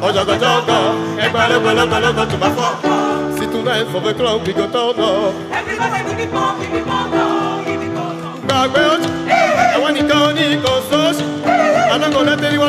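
A vocal ensemble singing together in chorus, with a lead singer on a microphone, over live instrumental backing.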